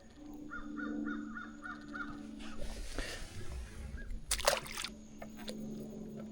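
A bird calls a quick run of about seven short notes over a steady low hum. About four and a half seconds in comes a loud, brief rustling noise.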